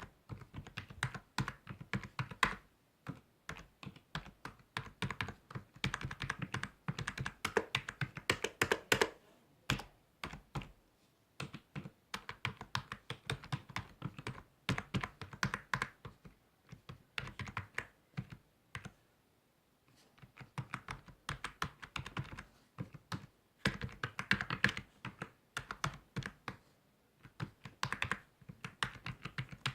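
Typing on a computer keyboard: fast runs of key clicks in bursts, broken by short pauses, one of them a near-silent gap of about a second just past the middle.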